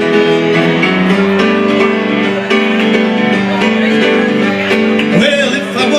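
Acoustic guitar strummed in a steady rhythm, playing the instrumental break of a simple two-chord folk song.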